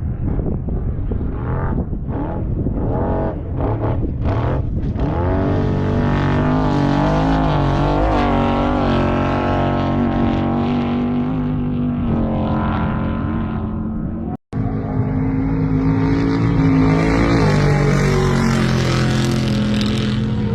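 Off-road race vehicle engines running and revving, the pitch wavering up and down as they pass. The sound drops out for an instant about two-thirds of the way through.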